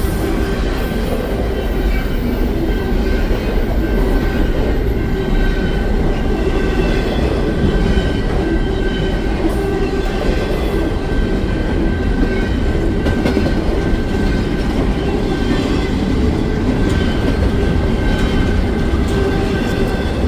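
Cars of a long BNSF freight train rolling past steadily, the wheels clattering on the rails, with a thin steady high tone over the rumble.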